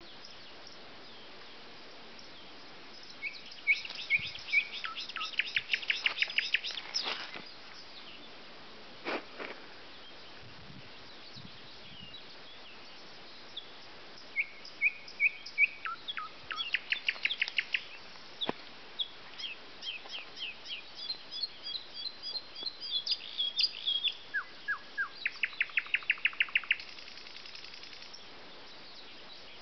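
Songbirds singing: phrases a few seconds long of quickly repeated high chirps running into fast trills, four or five phrases with short pauses between them.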